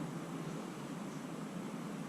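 Steady background hiss with no distinct clicks or knocks.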